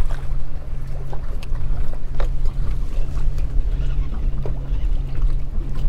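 Small fishing boat on choppy water: a steady low rumble with a constant low hum, and a few sharp clicks.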